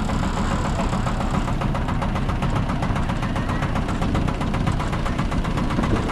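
Miniature park train running along its track, its engine humming steadily with a fast, regular clatter from the engine and wheels.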